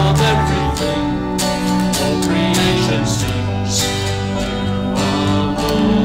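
Acoustic guitar strummed in a steady rhythm, with held keyboard notes underneath, accompanying a worship song.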